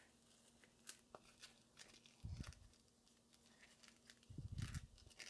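Faint rustling and scratching of the helmet's foam padding, fabric liner and headset wire being handled while a Cardo speaker is fitted into the ear pocket, with two soft low thumps, about two seconds in and near the end.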